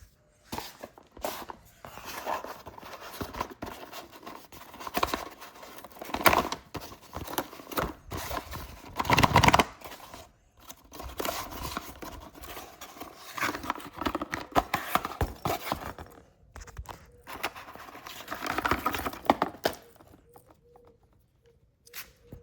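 Unboxing noise: packaging being opened and handled, with irregular rustling, tearing and scraping of cardboard and plastic wrap and occasional knocks. The noise comes in louder flurries about nine seconds in and again near nineteen seconds, then dies away near the end.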